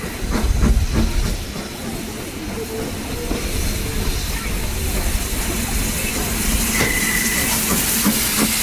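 Steam locomotive and train running: a low rumble with scattered clicks, and a hiss of steam that grows louder through the second half. A short high tone sounds about seven seconds in.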